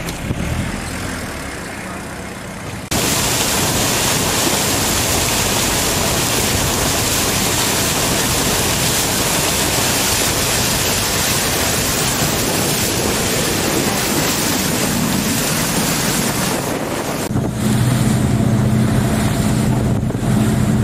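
Wind rushing over the microphone aboard a moving boat at sea: a loud, even roar that starts suddenly about three seconds in. About seventeen seconds in it thins, and the boat's engine comes through as a steady low drone under the wind.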